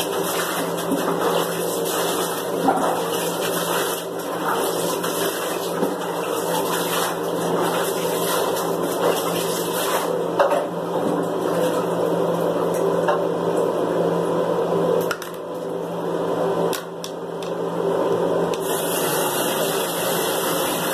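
Water poured from a cup and splashing over a dog in a bathtub, with a few louder splashes, over a steady hum.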